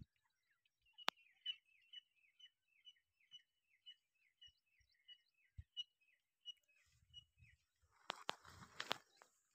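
Grey francolin (teetar) calling faintly: a long run of short, repeated notes, about two to three a second. There is a sharp click about a second in, and rustling and knocks near the end.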